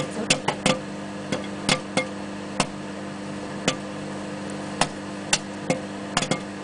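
Microwave popcorn popping in its bag: about fifteen sharp, irregular pops, several close together near the start and the end and only a few in the middle. Under them the microwave oven runs with a steady hum.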